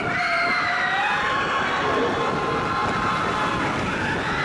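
Several riders on the Expedition Everest roller coaster screaming at once, long wavering screams held for seconds, over the steady rumble of the coaster train on the track.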